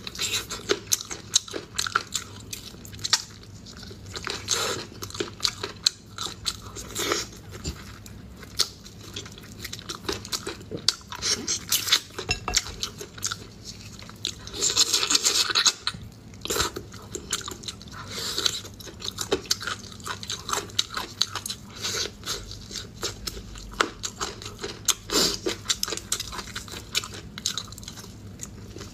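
Close-miked eating sounds: a person biting and chewing meat off cooked pork rib bones, with many irregular wet clicks and crunches. A denser, louder spell of chewing comes about halfway through.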